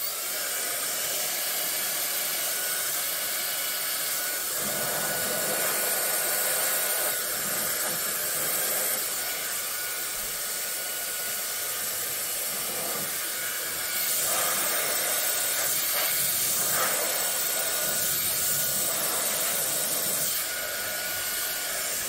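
Conair InfinitiPRO DigitalAIRE hair dryer with its nozzle attachment, running steadily: a continuous rush of air with a faint high whine. Its sound shifts a little as it is moved around the hair.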